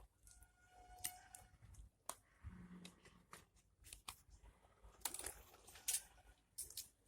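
Faint, scattered clicks and short rustling, crinkling scrapes, with two louder scraping bursts about five and six seconds in.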